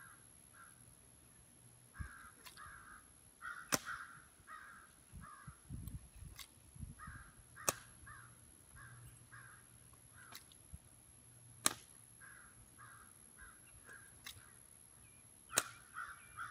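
Sharp slaps of a color guard drill rifle caught in the hands, about eight single cracks a second or two apart. Between them a bird calls over and over in short series.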